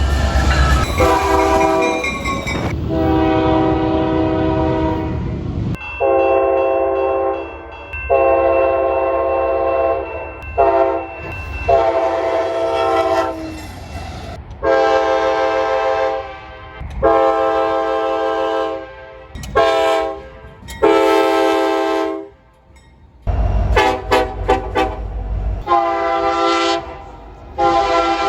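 Locomotive air horn sounding a run of long and short blasts, each a chord of several steady tones, over the rumble of a passing train.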